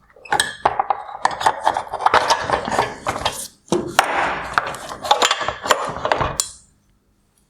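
Hard plastic headlight parts clicking, knocking and scraping as the projector bracket is unclipped and worked loose from the housing. The sound is a dense clatter of sharp clicks with rubbing between them, pausing briefly about halfway.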